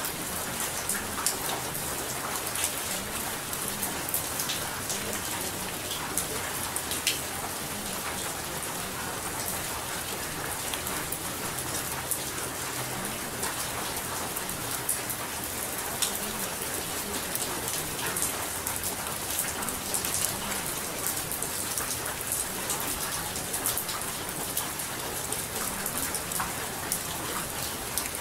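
Steady rain falling on a surface, a constant hiss with many small drop ticks.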